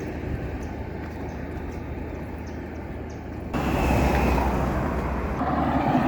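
Road traffic noise with a low rumble; about halfway through it turns abruptly louder, as a vehicle passes close.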